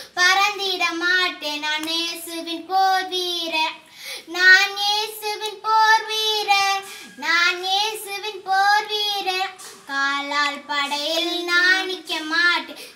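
A young girl singing a Tamil gospel song solo and unaccompanied, in sung phrases broken by short breaths.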